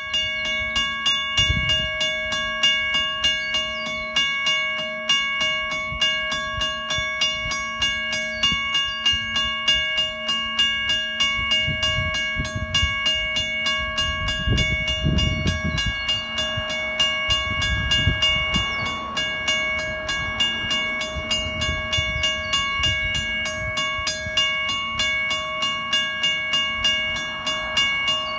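Railway level crossing warning bells ringing in rapid, regular strokes, with low rumbling underneath, while the crossing is active for an approaching electric train.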